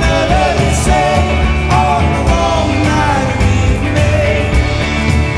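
Background music with a steady beat and a melody line over it.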